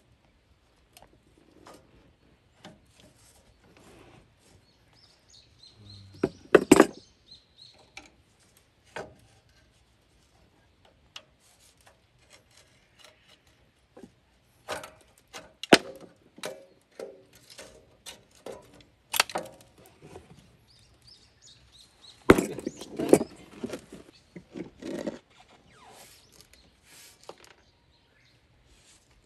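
Metal clicks and clanks as pliers work the return springs and the brake shoes come off a forklift's drum brake backing plate. The knocks come irregularly, with the loudest clusters about 7 seconds in, around 15 to 16 seconds, at 19 seconds, and from 22 to 25 seconds.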